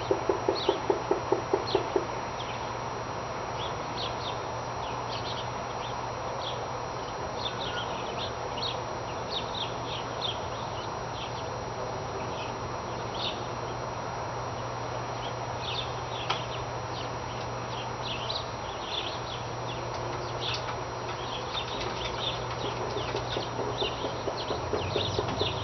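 A strange rhythmic banging outdoors, a quick even series of about three bangs a second, loud in the first two seconds, then dying away and building again near the end. Small birds chirp throughout over a steady low hum.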